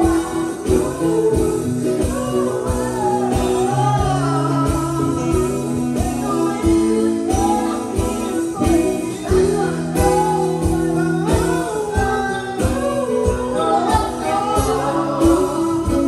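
Music: a song with a singing voice over held instrument notes and a steady beat.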